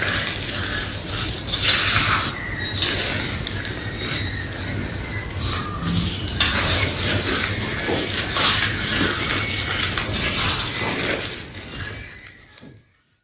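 Gym chalk crunching and crumbling in a run of irregular dry crunches over a steady crackle, fading out near the end.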